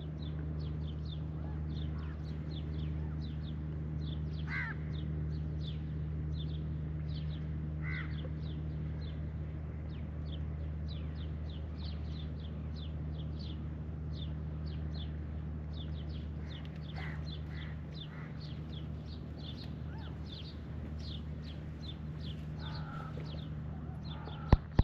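Small birds chirping over and over, short high calls two or three a second, with a few louder, lower calls now and then, over a steady low mechanical hum. A sharp click comes at the very end.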